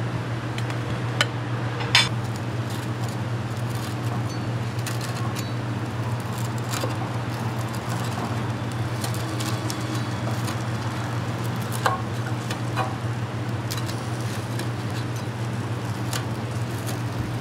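Busy food-stall kitchen background: a steady low hum with an even noisy wash, broken by a few short, sharp clinks or clicks, a couple near the start and a couple in the middle.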